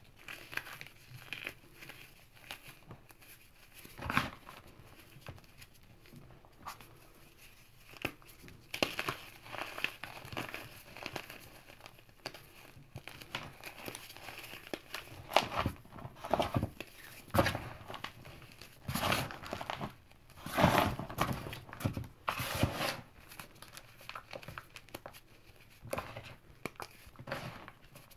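Gym chalk and cornstarch chunks crumbled and squeezed by hand, the powder sifting through the fingers: irregular soft crunching and crumbling, with a run of louder crunches past the middle.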